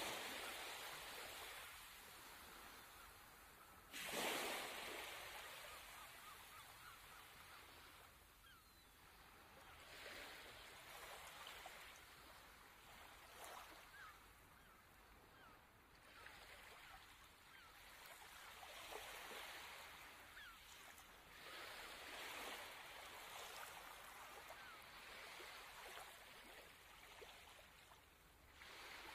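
Small waves lapping on a sandy beach, each wash swelling and fading every few seconds; the loudest come right at the start and about four seconds in.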